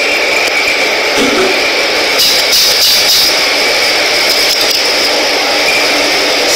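Steady whirring hiss of a running machine, with a high whine held at one pitch.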